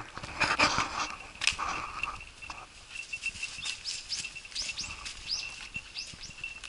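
Footsteps crunching and rustling through dry fallen leaves in the first two seconds, then birds chirping: a run of short rising calls over a steady, high, pulsing note.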